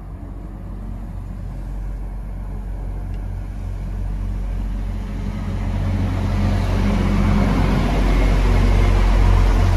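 Transport for Wales Class 175 diesel multiple unit approaching and running alongside the platform. Its low engine rumble and the noise of wheels on rail grow steadily louder and are loudest near the end.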